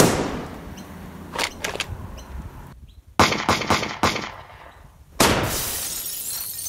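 Gunshots, each with an echoing tail: a loud shot at the start, a few lighter ones about a second and a half in, a rapid string of four shots in the middle, and a big blast about five seconds in that rings out slowly.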